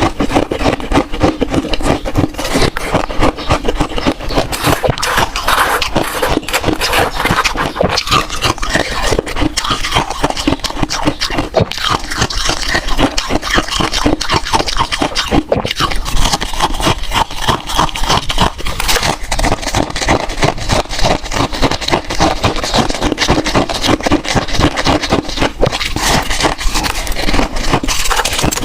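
Freezer frost being chewed close to the microphone: rapid, continuous crunching.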